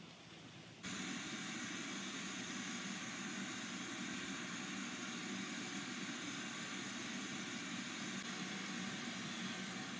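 Steady outdoor background noise, a low rumble with hiss, that comes in suddenly just under a second in and then holds unchanged.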